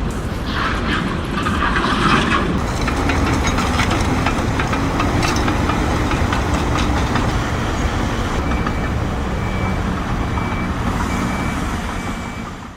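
Bulldozer's diesel engine running over the heavy rush of floodwater pouring over a dam. Over the last few seconds its reversing alarm beeps about once a second.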